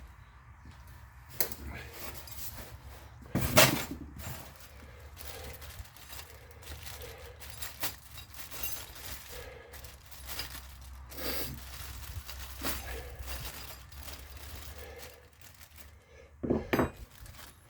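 Small hard parts being handled and taken out of a box: scattered clinks and knocks, the loudest about three and a half seconds in and another pair near the end, over a low steady hum.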